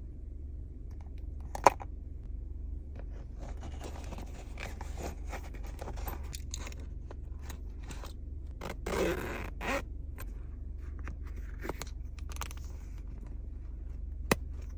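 A Longchamp Le Pliage bag being handled: rustling and scraping for several seconds, with a louder rustle about nine seconds in and a few sharp clicks, one near the start and one near the end. A steady low hum runs underneath.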